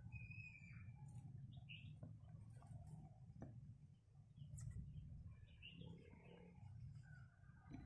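Faint, scattered bird chirps over a low, steady hum.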